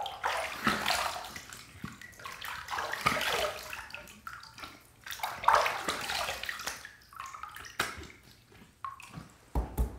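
Water splashing as cupped hands scoop water from a filled bathroom sink and throw it onto the face, in repeated irregular splashes, rinsing off shaving lather.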